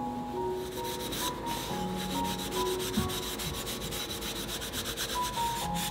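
Cotton cloth rubbing briskly over wooden spoons, wiping oil into the wood as a steady scratchy swishing. Slow background music plays underneath.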